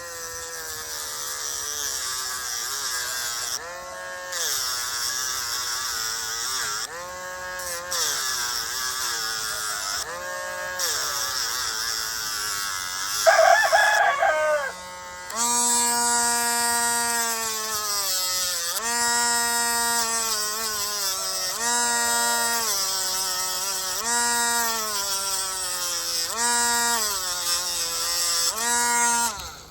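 Dremel rotary tool grinding down a rooster's spur. Its whine drops in pitch each time the bit is pressed into the spur and rises again as it is eased off, over and over. About halfway through comes a short, loud, wavering call from the rooster.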